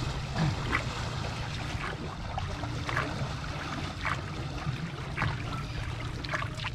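Water trickling and splashing around a small fishing boat, with scattered short splashes or knocks about once a second over a steady low hum.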